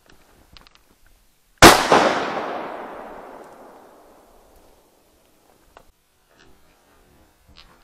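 A single shot from an IZh-27 double-barrelled shotgun, fired at a duck on a forest lake. It is sharp and very loud, and its report rolls away over about two seconds.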